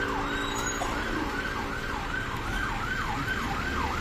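Emergency vehicle siren in a fast yelp, its pitch sweeping up and down about three times a second.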